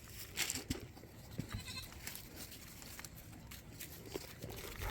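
Goats at the feeder: a faint bleat about a second and a half in, with scattered light knocks and clicks.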